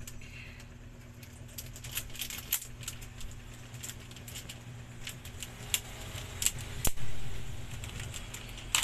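Small merchandise items being handled and unpacked by hand: scattered light clicks and rattles, with a louder click and rustle about seven seconds in, over a steady low hum.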